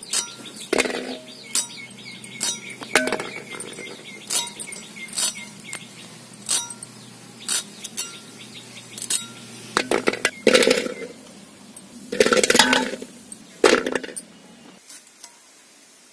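Drumstick pods being cut into pieces on a fixed curved vegetable-cutting blade (aruvamanai), a crisp snap with each cut about once a second. A few louder, longer clatters come between about ten and fourteen seconds in, and the cutting stops about a second before the end.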